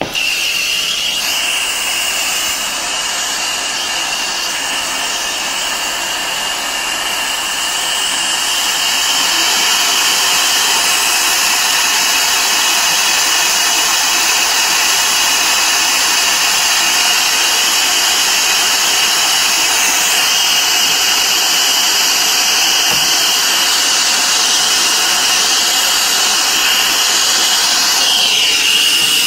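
Brazing torch flame hissing steadily with a thin high whistle in it, starting abruptly as it is lit and getting slightly louder about eight seconds in. It is heating a refrigerator compressor's copper discharge-line stub to melt out solder that had blocked the line.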